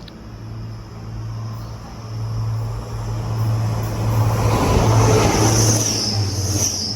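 Class 180 diesel multiple unit passing through the station at speed. A steady engine hum sits under a rising rush of wheel and air noise with a high rail hiss, loudest about five seconds in.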